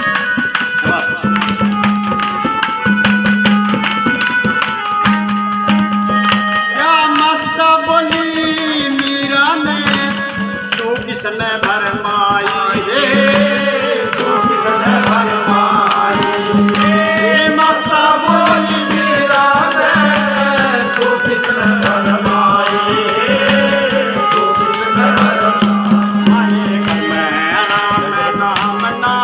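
Folk devotional bhajan music: a melody line over a steady hand-drum rhythm with tambourine, without lyrics being sung.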